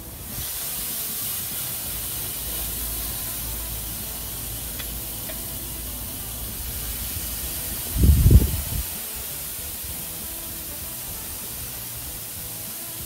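Marinated pork loin slices sizzling on a hot grill grate as they are laid on one after another, a steady hiss. A brief low rumble about eight seconds in is the loudest moment.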